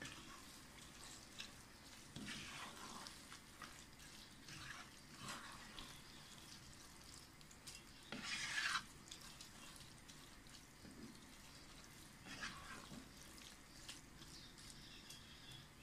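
Wooden spatula stirring washed basmati rice and vegetables in a pot as the rice is briefly fried in the masala: soft scraping sweeps every few seconds, the loudest about eight seconds in, over a faint sizzle.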